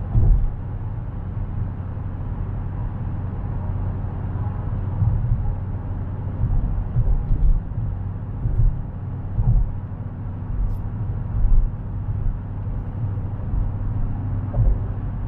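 Dodge Challenger cruising on a wet highway, heard from inside the cabin: a steady low drone of engine and road noise, with occasional brief low thumps.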